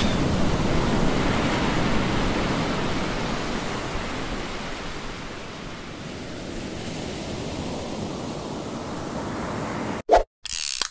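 Ocean surf: a steady wash of breaking waves that eases off over the first several seconds. Near the end it cuts out abruptly into a loud, choppy burst of mechanical clicking.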